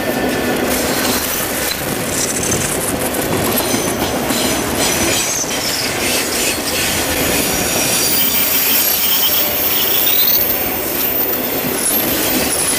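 Freight train of autorack cars rolling past close by: a loud steady rumble of steel wheels on rail, with high-pitched wheel squeal and scattered clicks of wheels over the rail joints. A short rising squeal comes about ten seconds in.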